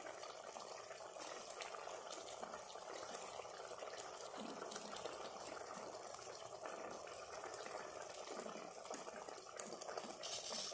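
A pot of chicken soup simmering on a gas stove: a faint, steady bubbling.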